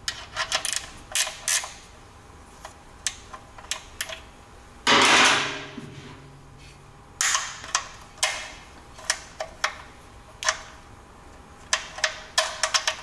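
Ratchet clicking in short runs as the 14 mm oil drain plug is backed off, with a couple of louder, second-long rasps about five and seven seconds in.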